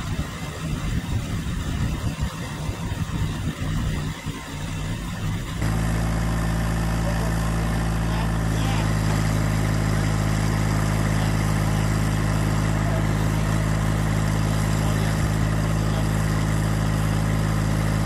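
Massey Ferguson GC1723E subcompact tractor's three-cylinder diesel engine running while its backhoe digs. The engine note wavers at first, then about five seconds in it changes abruptly to a steadier, louder running note.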